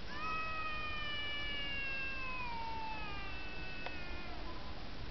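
Husky-type dog giving one long, high whining howl that slides slowly down in pitch and fades out after about four seconds.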